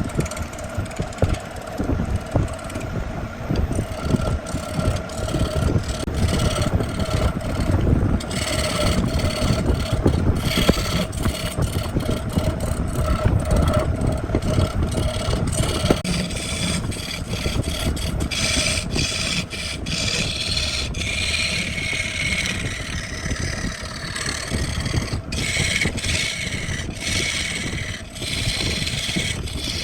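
Wood lathe running with a steady motor hum while a tool scrapes against the spinning wood-and-epoxy piece; the scraping grows hissier from about eight seconds in.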